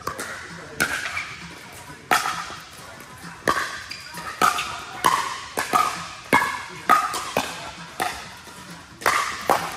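Pickleball paddles hitting a hard plastic ball back and forth in a rally: a dozen or so sharp pops with a short echo. They start about a second in and come about every half second through the middle.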